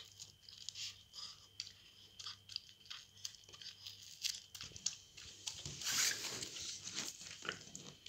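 A puppy biting and licking at an ice cream in a wafer cone, a run of small crunching and wet chewing sounds, with a louder run of crunches about six seconds in.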